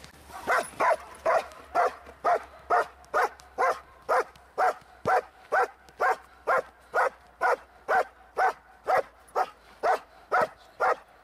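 German Shepherd barking steadily and rhythmically, about two loud barks a second, at a helper hidden in a blind: the bark-and-hold of protection training, guarding the helper without biting.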